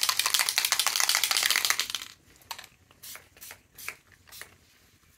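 A small pump spray bottle of Distress Oxide spray spritzed in a fast run of hissing sprays for about two seconds. After that come soft scattered rustles and taps as gloved fingers toss the damp seam binding.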